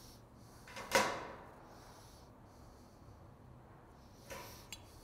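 Mostly quiet room tone broken by one short, sudden noisy sound about a second in that fades within half a second, then a softer one and a couple of faint clicks near the end, from handling a rafter square and marker against thin sheet-metal trim.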